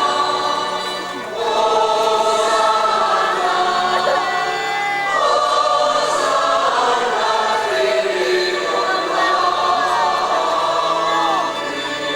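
A choir singing a slow sacred chant in long held notes, with short breaths between phrases, one about a second in.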